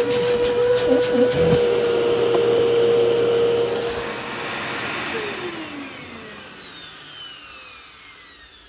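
Old bagged PowerGlide upright vacuum's motor running steadily at full speed, then switched off about four seconds in and winding down with a falling whine. The owner puts its noise down to a dirty armature and a commutator that needs polishing, wearing on the carbon brushes.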